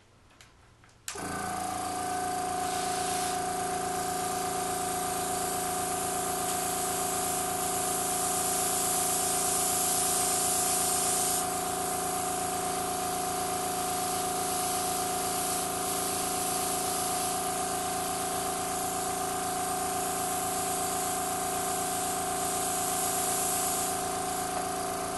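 Airbrush compressor starts about a second in and runs with a steady hum while the airbrush sprays food colouring onto cake frosting with a soft hiss, the hiss strongest for about the first ten seconds of spraying.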